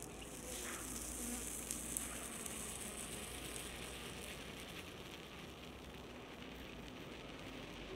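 Faint high hiss, fading slowly over the first few seconds, with a couple of small clicks, as a steel ball sinks into clear glitter slime.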